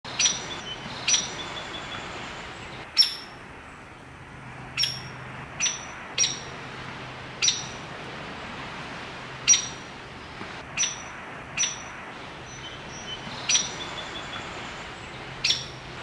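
Woodpecker giving sharp, single high call notes, about a dozen at irregular gaps of a second or two.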